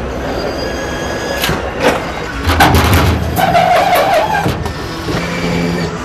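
Car assembly-line noise: scattered clicks and knocks of parts and hand tools over a steady hum, with a held whine lasting about a second around the middle.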